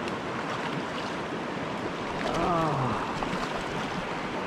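Shallow mountain creek rushing steadily over rocks in a riffle. A little past halfway, a brief voice sound slides down in pitch.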